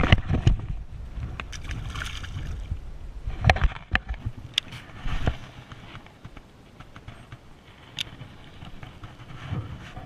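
Rustling and handling noise from a body-worn camera as its wearer moves through long grass, with a low rumble that fades after about six seconds and several sharp knocks, the loudest about three and a half seconds in.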